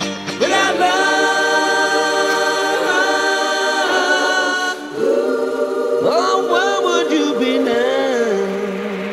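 Background music: voices singing long held notes in harmony without instruments, a new phrase with sliding pitches starting about five seconds in.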